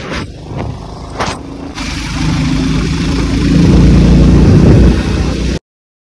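A motor vehicle engine running, swelling much louder from about two seconds in, with a couple of sharp knocks near the start; the sound cuts off abruptly near the end.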